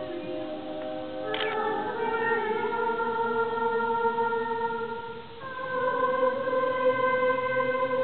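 Women's barbershop chorus singing a tag a cappella in close harmony: sustained chords, moving to a new chord about a second and a half in, then after a brief break about five seconds in, a fuller chord held.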